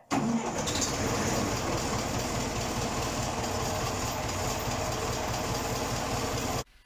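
International 745 XL tractor's four-cylinder diesel engine running steadily just after a cold start at −20 °C. It cuts in abruptly and cuts off suddenly near the end.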